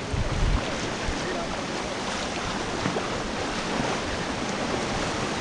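Whitewater rapid rushing and splashing around a river raft, with wind buffeting the microphone.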